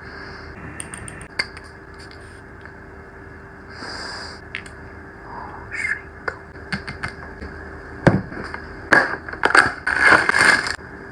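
Handling sounds: scattered light taps and clicks as glass perfume bottles with metal caps are picked up and shown, then, in the last few seconds, louder scraping and crackling as a paperboard box is opened.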